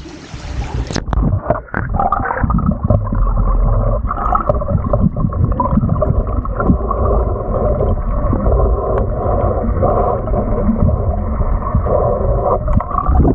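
Water heard through a camera's microphone dunked under the surface beside a pontoon boat. Wind noise on the microphone gives way about a second in to muffled gurgling and rushing water, dull and with the high end cut off.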